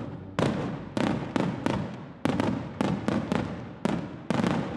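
Fireworks display going off: a string of about ten sharp bangs at uneven spacing, each trailing off before the next.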